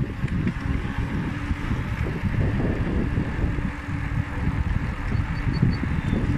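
Wind buffeting the microphone of a camera on a moving bicycle, a steady low rumble with a fainter hiss above it.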